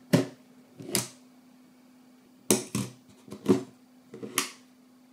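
Sony mirrorless camera's battery compartment door and battery being handled, giving about six short plastic clicks and snaps spread over a few seconds, some in quick pairs.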